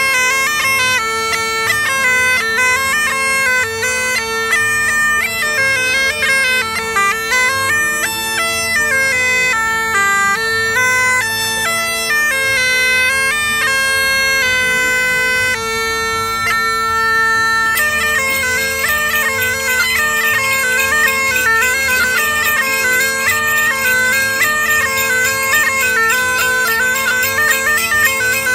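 Medieval-style bagpipe (Dudelsack) playing a tune over a steady drone, the chanter stepping from note to note. About two-thirds of the way through, the playing turns brighter and busier.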